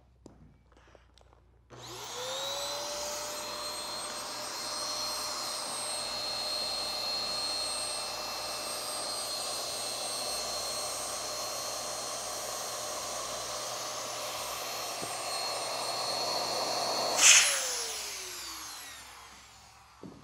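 110-volt electric inflator pump switched on about two seconds in, rising in pitch as it spins up, then running with a steady whine as it inflates an inflatable paddle board. Near the end there is a sharp burst as it is shut off, and the motor winds down, falling in pitch.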